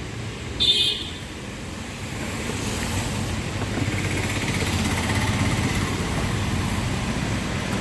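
Street traffic noise with a steady low rumble that builds about two seconds in, as of a vehicle passing close by. Under a second in there is a short high toot, like a vehicle horn.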